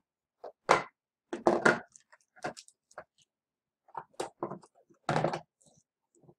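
Galileoscope telescope kit parts, some in plastic bags, being lifted out of a cardboard box and set down on a table: irregular knocks, clatter and crinkling, in a few separate handlings.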